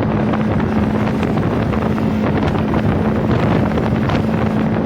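Boat engine running steadily under way, a constant low hum, with wind buffeting the microphone.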